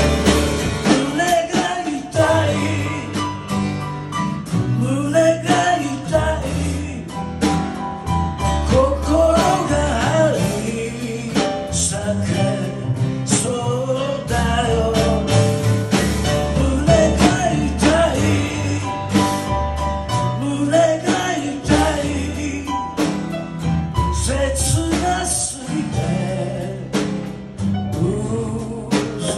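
Small live band playing a slow blues ballad: a man singing over strummed steel-string acoustic guitar, with upright double bass notes and a drum kit underneath.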